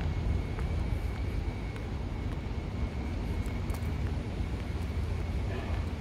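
Outdoor ambience dominated by a low, steady rumble, with a faint steady high tone above it and a few faint ticks.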